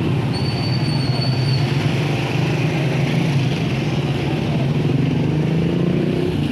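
Motor vehicle engine running steadily with road noise, and a thin high whistle about half a second in that lasts over a second.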